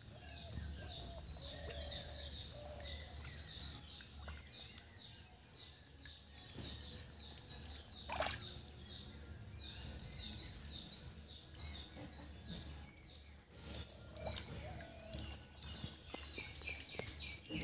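Small birds chirping: short high chirps repeated in runs a few times a second, with a few sharp clicks and a faint low hum underneath.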